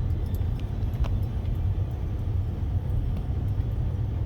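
Steady low rumble of a car driving on a snow-covered road, heard from inside the cabin, with a few light ticks in the first second and a half.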